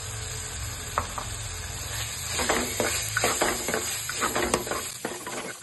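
Shallots and spice paste sizzling in hot coconut oil in an earthen clay pot, with a steady hiss. From about two and a half seconds in, a spoon scrapes repeatedly against the pot as the masala powders are stirred in.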